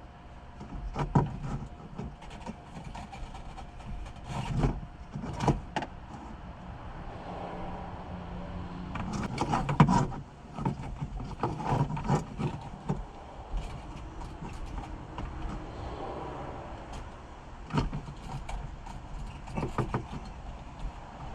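Irregular knocks, clicks and scraping of hands and tools working at a car's fuel pump assembly in the tank, trying to turn it loose, with the loudest knock about ten seconds in.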